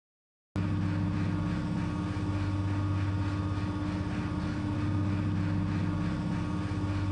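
Steady mechanical hum with a strong low drone and a fast, fine pulsing, starting abruptly about half a second in.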